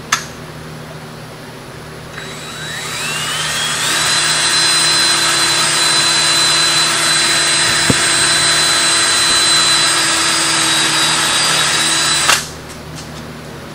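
Cordless drill in drill mode boring into clamped PVC pipes: a sharp click right at the start, then the motor winds up over about two seconds to a steady high whine, runs for about eight seconds and stops abruptly.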